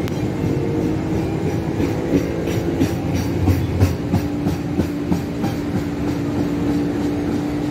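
Passenger train coaches running past at speed, wheels clacking over the rail joints most densely as the last coach goes by, about halfway through. A steady tone holds underneath, strongest in the second half.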